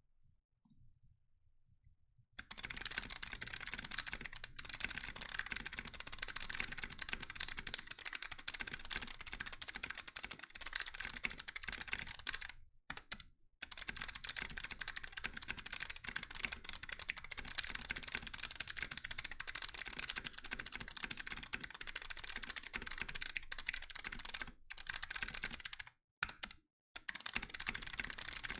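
Fast continuous typing on a mechanical keyboard with Kailh Box Jade clicky switches, their click bars giving a high-pitched, sharp click on every keystroke. The typing starts about two seconds in and pauses briefly twice.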